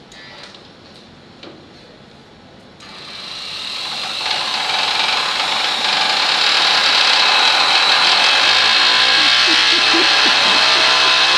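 A few faint knocks, then about three seconds in an electric sanding machine starts. Its buzz builds over a few seconds to a loud, steady run as it is held against the top of a wooden broomstick, shaking the rod to send waves down it. Lower steady tones join in near the end.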